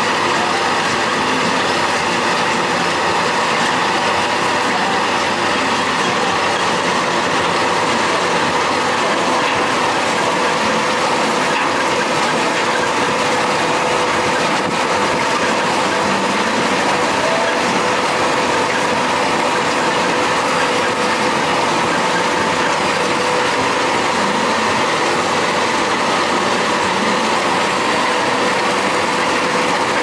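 John Deere 7530 tractor's six-cylinder diesel running steadily under load as it pulls a Claas Quadrant 2100 square baler, the baler's drive and pickup running with it in one continuous mechanical din with a steady hum.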